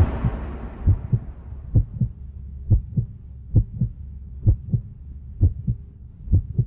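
Heartbeat sound effect: a slow, steady lub-dub of paired low thumps, about seven beats, as the fading tail of a booming music hit dies away in the first second.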